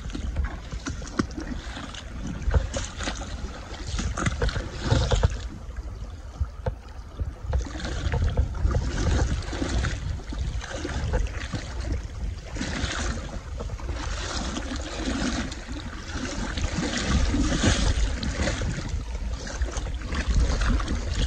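Wading across a shallow, flowing river: feet splash and slosh through the water in uneven bursts, with the rush of the current. A low rumble sits on the microphone throughout.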